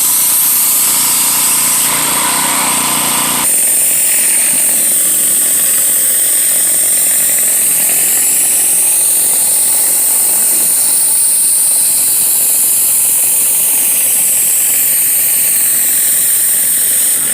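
Pressure washer running, a steady loud hiss of high-pressure water spray on concrete over the machine's engine. The sound changes abruptly about three and a half seconds in, losing its lower part.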